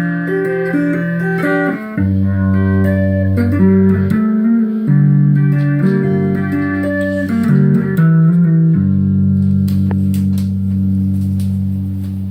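Electric guitar fitted with Dialtone custom pickups, played with a clean tone: a run of chords and single notes that changes every half-second to a second or so, ending on a chord held from about three-quarters of the way through and slowly fading.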